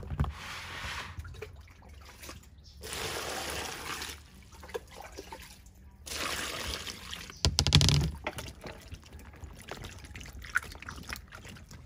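Water poured over eggplants in a plastic basin in three separate pours, with a loud thump and splash after the third. Then wet eggplants are knocked and rubbed together by hand in the water.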